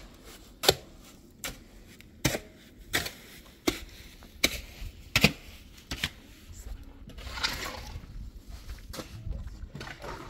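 Steel shovel knocking and scraping against a metal wheelbarrow pan while cement is mixed in it: about eight sharp knocks, evenly spaced, one every three-quarters of a second or so.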